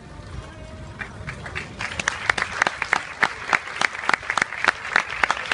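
Spectators' applause that starts with scattered claps about a second in and swells into dense clapping. Early on it sits over the low rumble of galloping horses' hooves on sand, which fades as the clapping grows.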